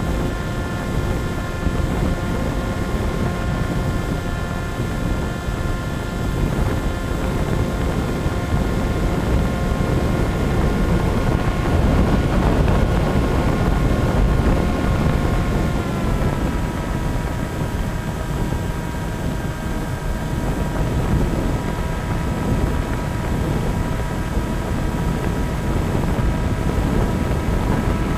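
A radio-controlled model airplane's motor and propeller whine steadily in flight, heard from on board with wind rushing over the microphone. The pitch steps slightly lower about halfway through as the throttle eases back.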